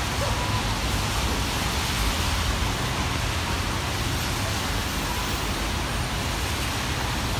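Heavy rain falling steadily: a dense, even hiss with a low rumble beneath it.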